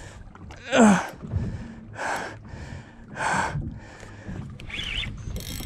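A man straining and breathing hard while fighting a large fish on rod and reel: a falling grunt about a second in, then several heavy exhales.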